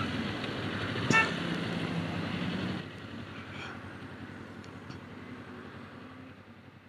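Street traffic and engine noise with one short vehicle horn toot about a second in. The engine-and-traffic noise drops off suddenly near three seconds and then fades lower.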